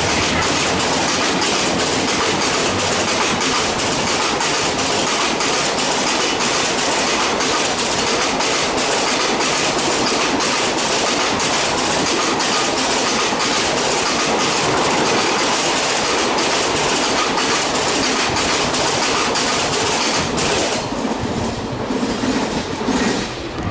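Express train coaches rolling past at speed: a loud steady rush with wheels clicking repeatedly over rail joints. Near the end the rush thins out as the train moves away.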